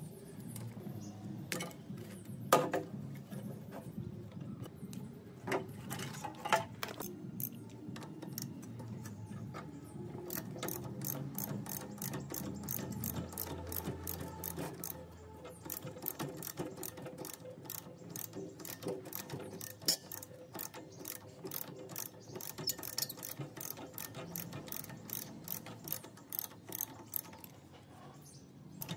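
Hand tools working on metal engine parts: a few scattered knocks and clinks, then rapid, even mechanical clicking from about ten seconds in.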